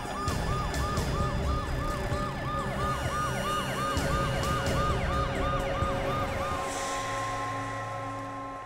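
Ambulance siren in a fast yelp, each rising-and-falling sweep repeating about three times a second over a low road rumble. About two-thirds of the way through the sweeping stops and steady held tones of background music take over.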